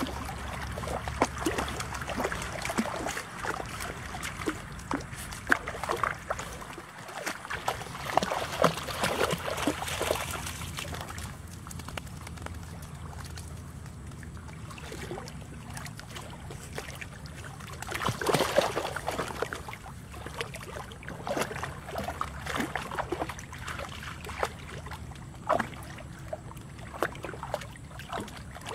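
Water sloshing and splashing as Labrador retriever puppies wade and paddle through shallow water, in irregular bursts that are busiest about eight to ten seconds in and again around eighteen seconds, over a steady low rumble.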